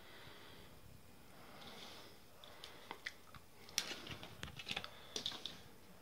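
Soldering iron melting silver solder into a gold-plated banana plug: a faint sizzle, then a run of small crackles and ticks from about two and a half seconds in, thickest near the end.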